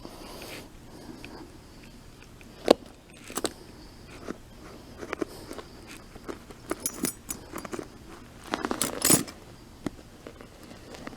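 A bunch of metal keys clinking and jangling in short, irregular bursts, with a sharp click about two and a half seconds in and the longest jangle near the end.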